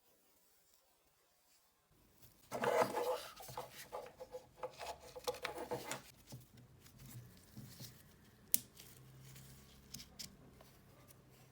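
Hands scraping and rubbing small tool parts for about three seconds, followed by quieter scattered clicks and one sharp click.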